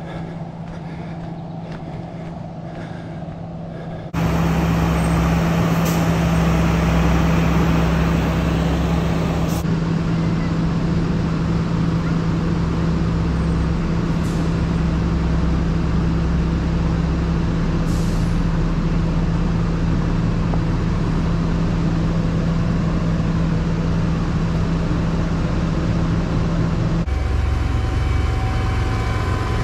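Fire engines' diesel engines running steadily, a low, even drone and rumble. It jumps louder about four seconds in and shifts in tone near the end, beside a fire engine's pump panel.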